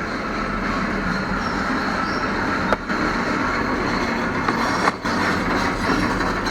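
Loud, steady mechanical background rumble with layered humming tones, dipping briefly twice. It is loud enough to drown out the clicks of the plastic trim being snapped together.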